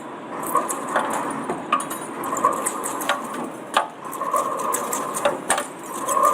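Metal being cut on a heavy lathe: a steady cutting noise that swells and eases about once a second, with frequent irregular sharp clicks.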